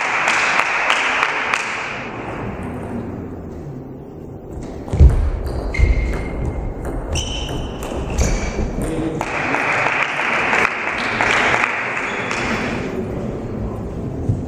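Table tennis ball clicking sharply off the bats and table during a rally, with the loudest hit about five seconds in. Crowd noise from spectators comes at the start and again after the rally.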